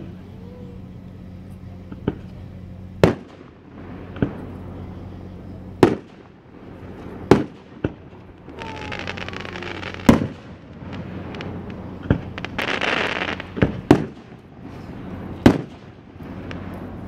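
Aerial fireworks display: about a dozen sharp bangs of shells bursting in the sky, irregularly spaced one to two seconds apart. Twice, around the middle, a second or so of hissing noise rises between the bangs.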